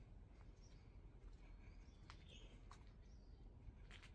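Near silence: a low background hum with a few faint short chirps and scattered faint clicks.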